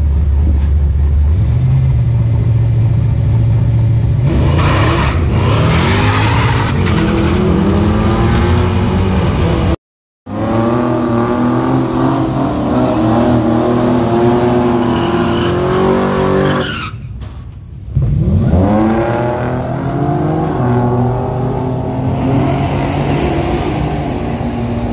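Drag-racing car engines at a drag-strip start line: a steady idle, then revs climbing in repeated rising sweeps as a car launches and pulls away. After a sudden cut, an engine is held at high revs with tyre squeal during a burnout. After a short dip, another car launches with its engine revving up in rising sweeps.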